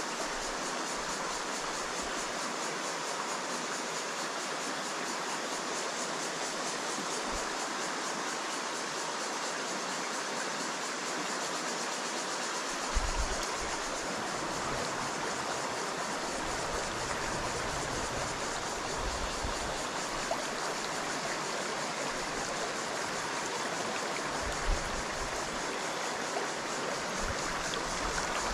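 Shallow rocky stream running over pebbles: a steady, even rush of water.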